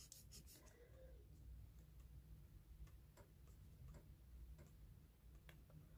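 Faint, irregular taps of a pencil tip dotting small spots onto paper.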